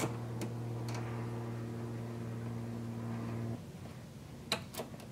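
A steady electrical or motor hum that cuts off abruptly about three and a half seconds in, followed by a few light clicks.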